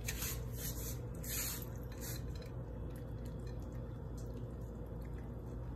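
Yorkshire terriers eating soft blended food from one bowl: faint wet chewing and smacking, busiest in the first couple of seconds.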